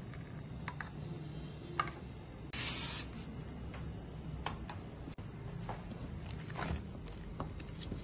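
Crockery being handled: scattered light clicks and taps of a mug and plate, with one short hiss about two and a half seconds in, over a low steady hum.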